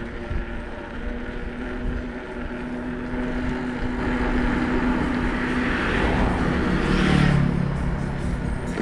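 Bicycle tyres rolling with a steady rumble while a motor vehicle passes close by. Its noise swells to a peak about seven seconds in, then falls away, and its engine pitch drops as it goes past.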